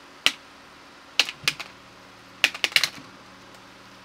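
Plastic clips of the white wiring-harness cover on a Ford EV battery module clicking and snapping as the cover is worked loose and lifted off the cells: one sharp snap, then three more about a second in, then a quick run of four or five clicks.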